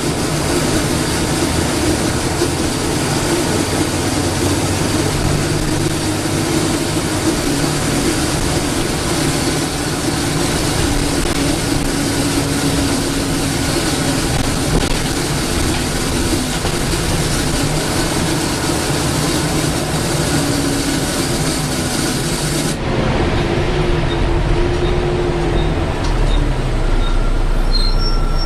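Inside a Volvo B7TL double-decker bus: the six-cylinder diesel engine running with its pitch rising and falling, under a loud hissing suction noise like a vacuum cleaner. About 23 seconds in the hiss cuts off suddenly, leaving a deeper engine rumble.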